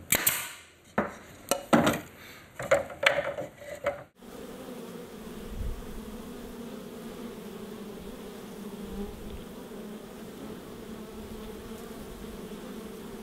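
A pneumatic nail gun firing several sharp shots into a wooden beehive frame, then, about four seconds in, a steady drone of many honeybees buzzing at a hive entrance.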